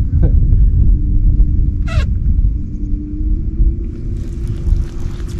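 Low rumble of wind buffeting the microphone over a steady low hum, with a brief high-pitched sound about two seconds in.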